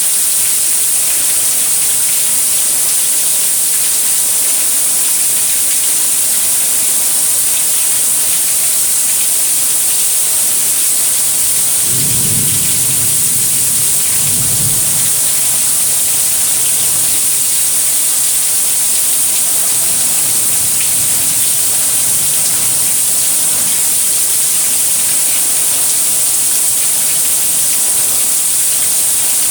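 Heavy rain falling in a steady, loud hiss. A low rumble comes in twice in quick succession about halfway through.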